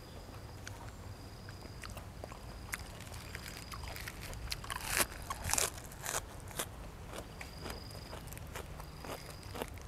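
Close-up eating sounds: blood cockle shells clicking and cracking as they are opened by hand and eaten, with a couple of louder crunches or slurps about five seconds in.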